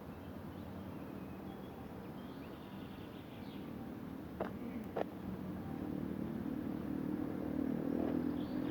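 A motor vehicle's engine runs steadily and grows louder in the second half, as if drawing nearer. Two sharp clicks come about half a second apart near the middle.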